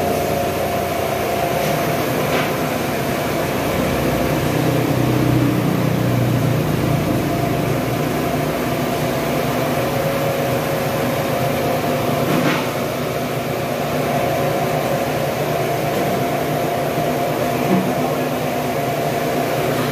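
A corn grinding mill's machine running steadily, a constant mechanical hum with a fixed pitch and two faint clicks.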